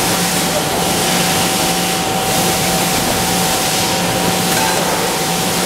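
Steady machinery noise of an aluminum cookware production line, with conveyor and press machines running, and a thin steady whine and a low hum running through it.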